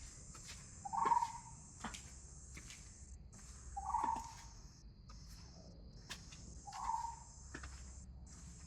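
Jungle insects, crickets or cicadas, keep up a steady high-pitched drone with brief breaks. A short bird call sounds three times, about three seconds apart, with scattered faint clicks between.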